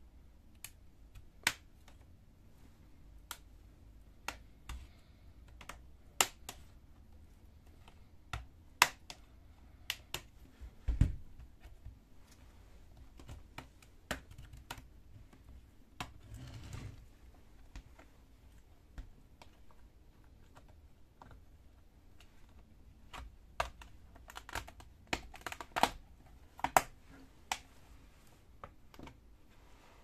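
Plastic snap-in clips of a laptop's bottom cover clicking loose one after another as a pry tool works around the edge: scattered sharp clicks at irregular intervals, coming thick and fast near the end as the cover comes free, with a single dull knock about a third of the way through.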